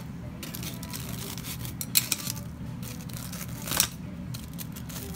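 Kitchen scissors cutting through a deep-fried breaded cutlet on a paper tray, with small clicks of the blades and tongs. Two sharp cuts about two seconds apart, over a steady low hum.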